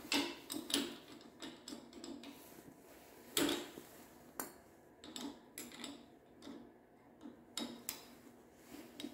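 Irregular metallic clicks and clinks of a small wrench on the chain-tension lock nuts of a garage door opener's rail and chain, with one louder clank about three and a half seconds in.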